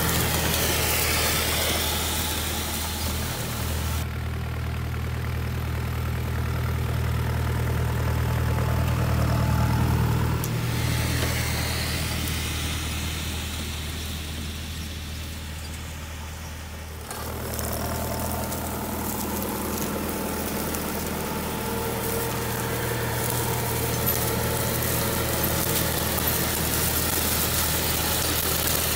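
Massey Ferguson tractor's diesel engine running steadily while pulling a Monosem precision seeder, with the crackle of dry cover-crop residue under the seeder's row units. The sound changes abruptly about 4 seconds in and again after about 17 seconds, growing quieter in between as the machine draws away.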